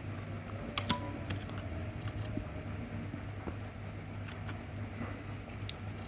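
Scattered small clicks and taps of laptop RAM modules being handled and moved between their slots, over a steady low hum.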